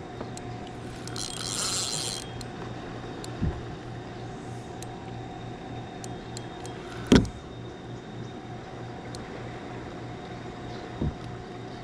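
Spinning reel being cranked against a hooked catfish, a steady run of sound with scattered light clicks. A brief high hiss comes about a second in, and a single thump, the loudest sound, a little past the middle.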